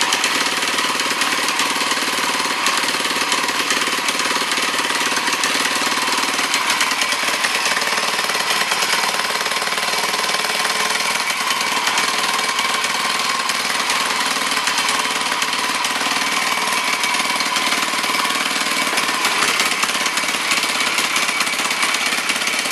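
Ducati Cucciolo small four-stroke single-cylinder bicycle engine running steadily.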